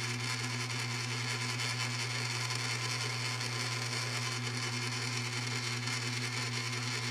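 Cowells 90 ME lathe running steadily in back gear during a facing cut on cast iron: an even motor and gear hum with a continuous higher whine.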